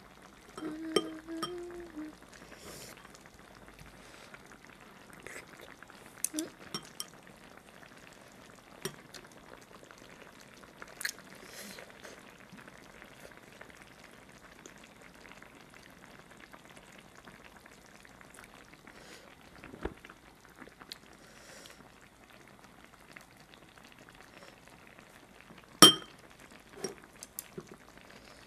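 Quiet eating: chopsticks and a metal spoon clicking against a pot of braised fish, with soft wet sounds in between, and one sharp clink near the end. A few seconds of humming open it.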